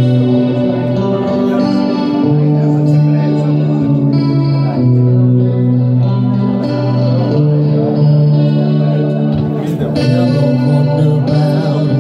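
Live band music led by an electric guitar playing held chords that change every second or two.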